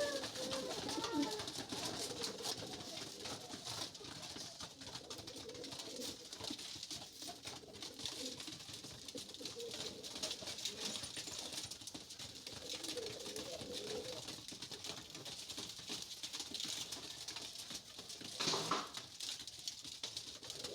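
Domestic pigeons cooing, low wavering calls that come and go throughout. A short, loud rustling burst comes near the end.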